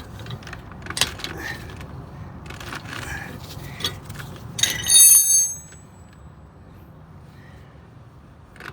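Steel wrenches clicking and clinking against a brake caliper bolt. About five seconds in comes a loud metal clank, with high ringing tones that fade out over about a second, as a wrench knocks or is set down.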